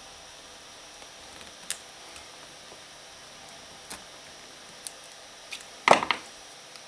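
Glued plastic diffuser dome of an LED light bulb being pried with a small screwdriver: scattered small clicks and snaps, then a loud quick crackle of snaps about six seconds in.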